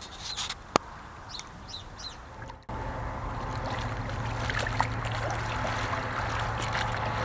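A few short, high bird chirps, then from about two and a half seconds in a louder, steady wash of water sloshing in the shallows with a low hum, as an angler in waders stands in the water landing a small carp.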